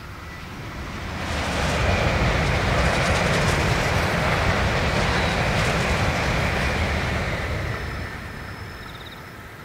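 Tokaido Shinkansen high-speed train passing at speed: a rushing noise with a low rumble that swells over the first two seconds, holds, then fades away near the end.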